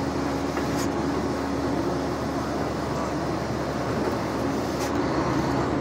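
Steady cabin noise of a Marcopolo G6 1200 intercity coach cruising on the highway: engine drone and tyre and road noise with a constant low hum, and two faint clicks, about a second in and near the end.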